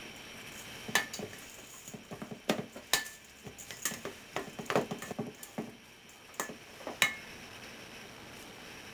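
Stainless steel mixing bowl clanking and knocking as seasoned rice is mixed in it by hand, with a few sharp metallic clanks that ring briefly and softer knocks between. The loudest clanks come about a second in, three seconds in and about seven seconds in.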